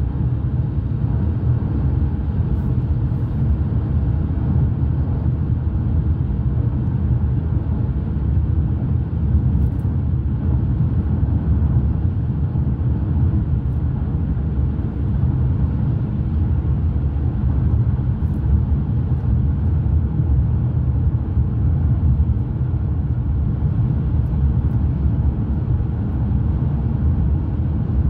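Steady low road rumble of a car driving at speed, heard from inside the cabin: tyre and engine noise with no breaks or changes.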